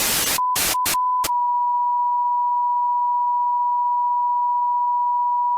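Bursts of TV-style static cut in and out for about the first second, chopping a single-pitched electronic beep tone. The tone then holds steady and unbroken, like a broadcast test tone.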